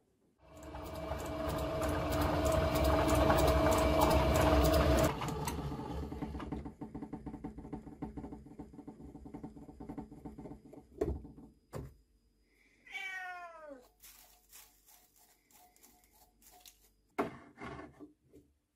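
Small vintage Lorch metal lathe running, its spindle turning a twist drill into a brass blank, with a steady hum and whine for about five seconds before it stops. Quieter irregular clicks and a few sharp knocks follow, and about two-thirds of the way in comes a short falling squeal about a second long.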